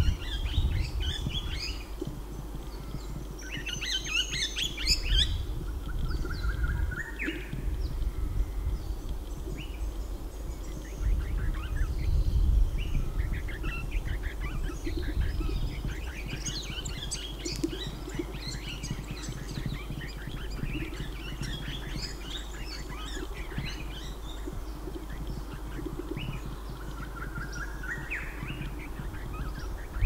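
Swift parrot calling from a perch: repeated clusters of short, high chirps, densest in the middle, with a couple of rising slurred notes. A low rumble of wind swells at times underneath.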